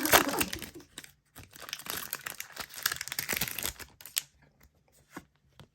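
Foil Pokémon booster pack wrapper crinkling and tearing as it is opened, stopping about four seconds in, then a few faint clicks.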